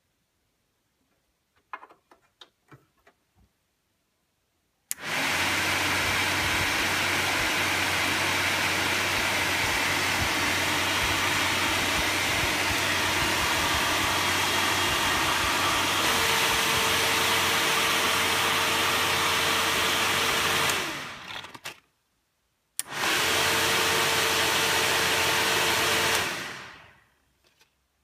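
SPAL electric cooling fan on an oil cooler switching on suddenly and running with a steady rush of air and motor hum. It dies away over about a second, starts again a second later, runs a few more seconds and dies away again. A few faint clicks come before it first starts.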